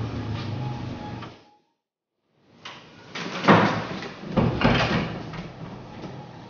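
A door being shut and bumped: two loud knocks about a second apart, after a short stretch of dead silence, then quieter rustling.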